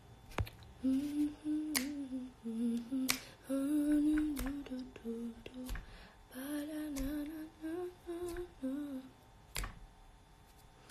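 A young woman humming a wandering tune in short held notes, with a pause partway through, and a few sharp clicks among the humming.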